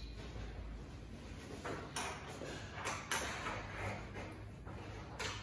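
Flat-pack bed parts being handled during assembly: a scraping and rustling sound with a few sharp knocks about two and three seconds in.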